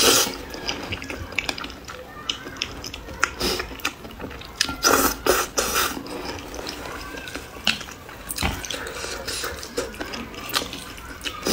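Close-miked eating of noodles: wet slurping, with the loudest slurps at the start and about five seconds in, between sticky chewing and mouth clicks.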